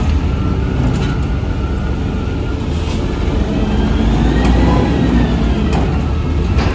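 Scorpion Mantis front-loader garbage truck's engine running as the truck creeps forward, with a pitched whine that rises and falls about four to five seconds in and a few light knocks.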